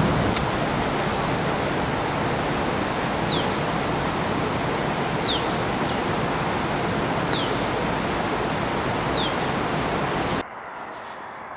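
A small songbird sings a short phrase about every two seconds: a fast high trill and a couple of quick falling whistles. It sings over a steady rushing noise that cuts off suddenly near the end, leaving a much quieter background.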